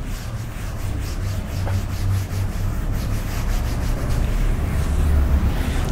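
Rubbing strokes against a classroom board, irregular and short, over a steady low rumble.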